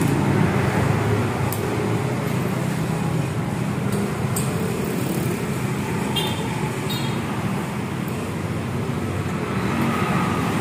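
Steady rumble of road traffic, with a few light metallic clinks from hand tools, two of them ringing briefly just past the middle.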